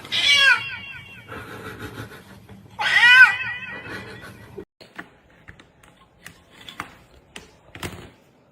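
Cat meowing in two short bursts of quick, high, rising-and-falling calls about three seconds apart, followed by a few faint clicks.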